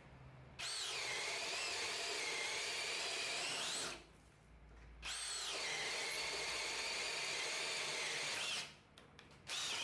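AEG 18V Fusion cordless hammer drill boring a 29 mm auger bit into a treated timber sleeper. It runs in two bursts of about three and a half seconds each, with a steady motor whine over the sound of the bit cutting wood, the pitch swinging as each run starts and rising again as it ends. A short third burst follows near the end.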